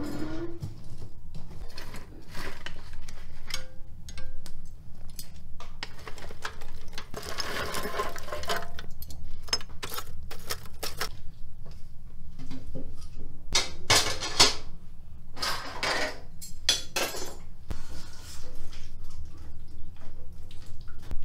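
Iron tongs clinking and scraping against metal while burning coals are lifted from a wood stove and dropped into a bucket brazier, giving irregular knocks and clatters, busiest about a third of the way in and again past the middle.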